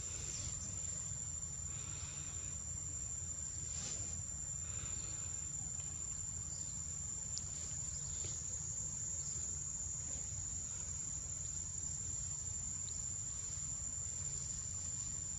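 Insects trilling in one unbroken high-pitched tone, over a low steady rumble, with faint occasional rustles.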